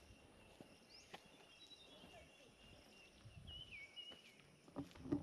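Faint outdoor ambience: a steady high insect drone with a few short gliding bird chirps, and occasional footsteps on a paved path, one louder step near the end.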